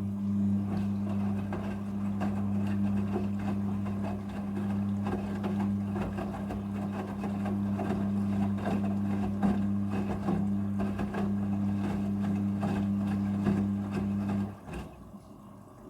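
Front-loading washing machine motor running with a steady hum, under irregular sloshing and clattering, cutting off about 14 seconds in.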